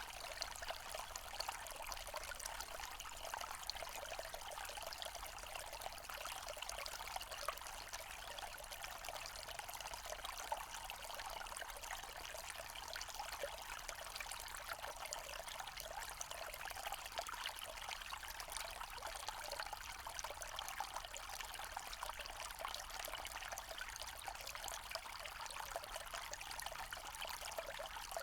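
Forest stream trickling and splashing over stones, a steady babbling water sound.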